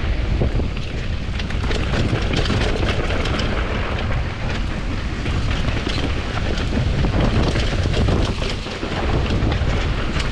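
Commencal Supreme DH downhill mountain bike riding fast down a trail: a continuous rushing noise of tyres and air, with frequent rattles and clicks from the bike jolting over rough ground.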